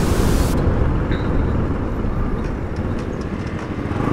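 Bajaj Pulsar NS200's single-cylinder engine running on the move. Wind noise rushes over the microphone and stops suddenly about half a second in, leaving the engine's low pulsing.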